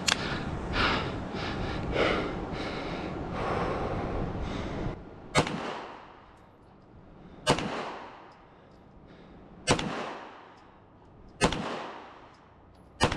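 A magazine clicks into a pistol, and heavy, rapid breathing follows for about five seconds. Then five pistol shots fire about two seconds apart, each with a short echo rolling off.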